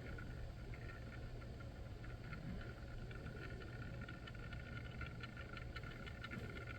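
Small motorised photo-booth turntable running, spinning fast: a faint steady hum with a thin high whine and light irregular ticking.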